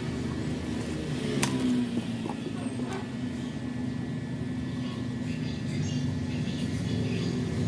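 A steady low droning hum with a couple of sharp clicks, about a second and a half and three seconds in.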